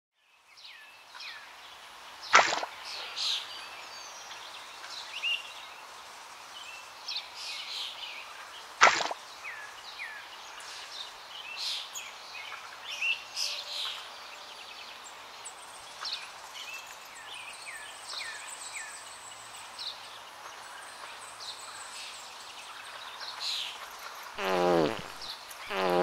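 Birds chirping over a steady outdoor ambience, with two sharp clicks in the first nine seconds and two falling, wavering sounds near the end.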